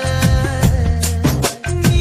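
Background music with a steady beat, deep bass and a sliding melody line, with a short break in the beat about one and a half seconds in.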